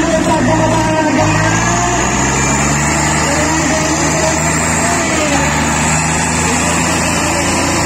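Diesel tractor engines, among them a Swaraj 855 FE's three-cylinder diesel, running flat out under heavy load as two tractors pull against each other in a tug-of-war. The engine note steps up about a second in, then holds steady.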